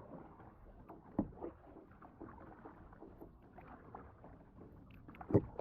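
Kayak and paddle on calm water: light splashing and small knocks, with two sharper thumps, one about a second in and a louder one near the end.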